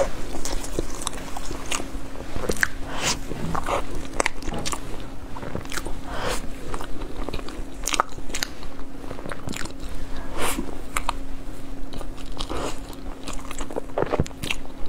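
Close-miked biting and chewing of a crusty fried scallion roll: irregular crunches and crackles, one after another, over a faint steady low hum.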